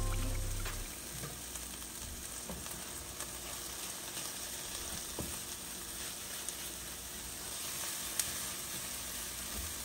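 Scrambled eggs with cherry tomatoes and greens sizzling steadily in a nonstick frying pan as they are stirred with a silicone spatula, with a few light taps and scrapes of the spatula.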